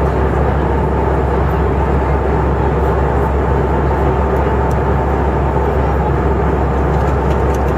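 Cabin noise of an Airbus A319-111 in flight, heard from a window seat beside its CFM56 turbofan engine: a steady rushing of airflow and engine noise over a constant low hum, with no change.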